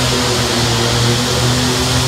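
Pro-stock diesel pulling tractor's small (75 cubic inch or less) indirect-injection diesel engine running flat out under load on around 50 lb of boost, a loud steady drone whose pitch holds nearly level.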